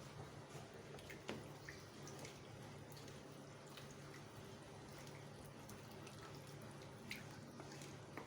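Faint, scattered pops and drips from seasoned chicken simmering in a pot, over a steady low hum.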